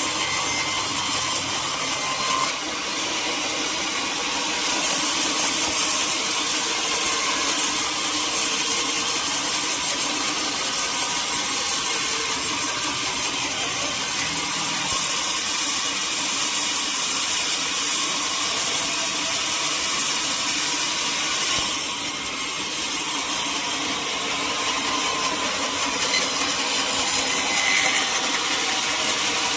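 Sawmill saw cutting teak wood: a steady, continuous sawing noise. It eases off for a moment about two and a half seconds in and again about twenty-two seconds in, then picks back up.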